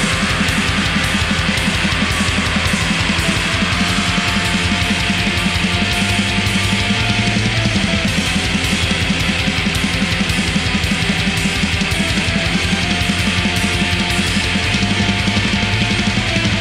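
Black metal: dense distorted electric guitars over fast, even drumming, loud and unbroken.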